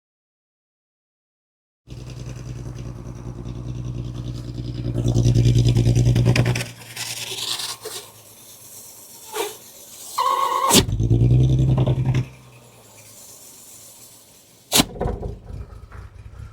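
A shop vac running with its hose on a car's tailpipe, drawing air back through the exhaust with the engine off so that a leak can be heard sucking in. It runs in two stretches, a longer one and then a short one, with a few knocks and clatters of handling between and a sharp knock near the end.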